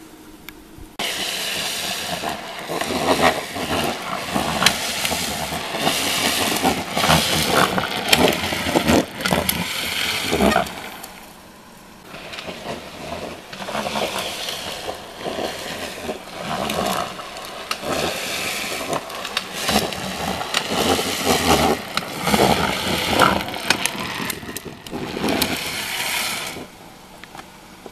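Wheels of a three-wheeled drift trike grinding and scraping on asphalt as it rolls and slides downhill, a rough, crackling noise that swells and fades twice: one pass dying away about ten seconds in, another starting a couple of seconds later.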